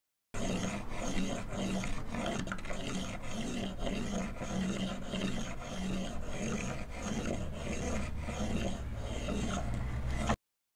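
White cane tip swept back and forth in contact with wooden porch deck boards: a continuous scraping, rubbing sound with a regular rhythm of roughly three strokes every two seconds and faint clicks, cutting off just before the end.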